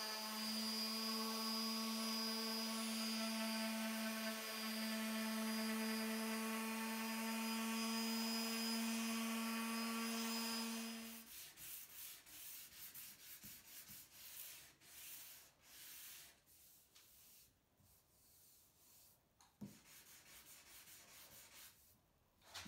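Random orbital sander running steadily on an end-grain walnut cutting board, a constant hum with hiss, cutting off about eleven seconds in. Then a sanding block rubbed by hand over the board's edges in quick short strokes that fade to faint strokes, with one click near the end.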